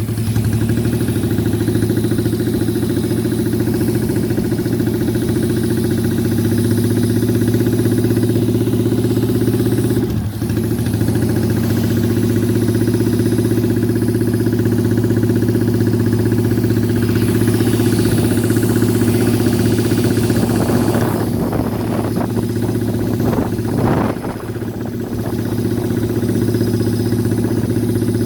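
Custom motorcycle's 1000cc car engine running at a steady speed. Its sound dips briefly twice, about ten seconds in and again near twenty-four seconds.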